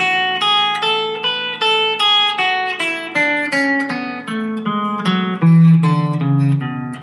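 Guitar playing an A major scale over two octaves, one picked note after another. It reaches the top notes early on, then steps back down to the low end.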